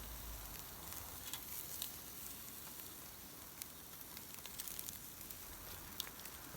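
Meat sizzling on a grill over a charcoal and wood fire: a steady hiss with scattered sharp crackles.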